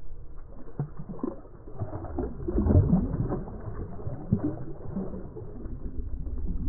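Striped bass splashing and thrashing in shallow water as it is released by hand, with water sloshing over the weedy shallows; the splashes are loudest about three seconds in, over a steady low rumble.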